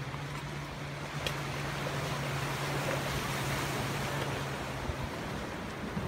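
Rough-sea surf washing steadily, swelling a little midway. A low steady hum runs underneath and stops about five seconds in.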